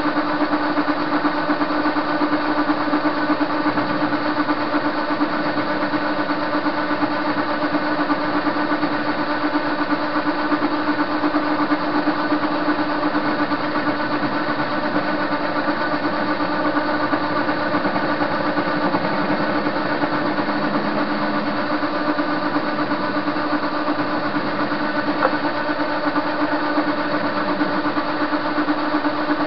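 Soviet TV-16 lathe running at a steady speed with a bar blank spinning in its chuck. Its motor and gear train give a constant hum with a strong steady tone.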